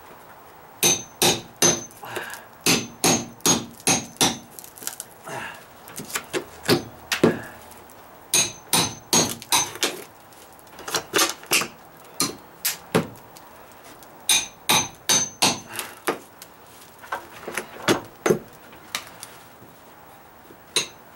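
Hammer striking a steel bar held against dry-rotted OSB plywood, in runs of several sharp blows about two a second with short pauses between. Some blows give a bright metallic ring.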